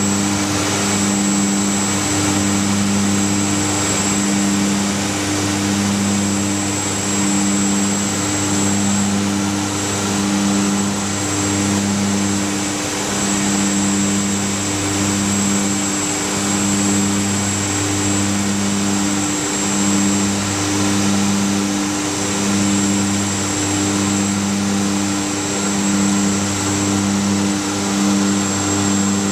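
Cockpit noise of a Mitsubishi MU-2's twin Garrett TPE331 turboprops on approach: a loud steady propeller drone that swells and fades about every second and a half as the two propellers beat slightly out of sync, with a thin high steady whine above it.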